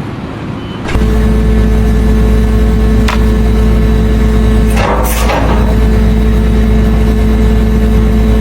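A loud, steady engine or machine hum that starts suddenly about a second in, with a few sharp clicks or knocks partway through.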